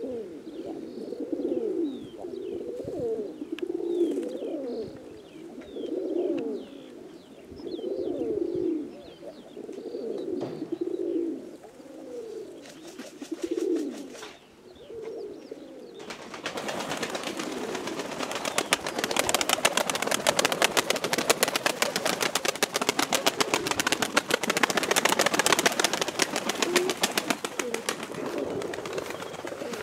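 Domestic pigeons cooing: a run of repeated low, rising-and-falling coos, with faint high chirps above them. About halfway through, a dense, rapid clatter of clicks and rustling sets in and continues, with the cooing fainter beneath it.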